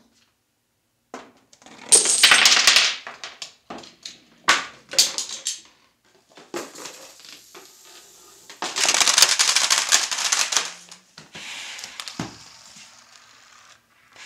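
Pieces of a homemade Rube Goldberg chain reaction clattering: dominoes and a row of standing cases toppling one after another onto a hard floor. The sound comes as several bursts of rapid clicking clatter with short pauses between.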